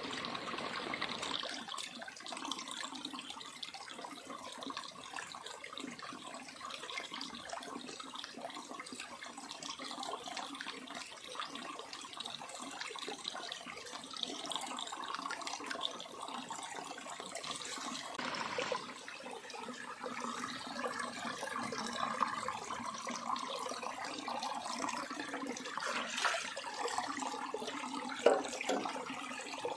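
Small rocky stream running steadily, a continuous rushing and trickling of water. A brief sharp sound comes near the end.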